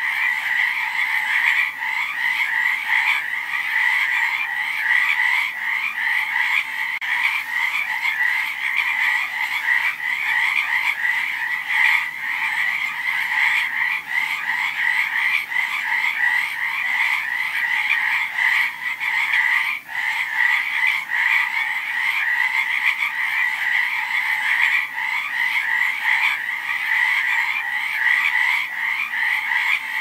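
A dense chorus of many frogs croaking at once, their rapid calls overlapping into a continuous din with no pauses. The chorus dips briefly about twenty seconds in.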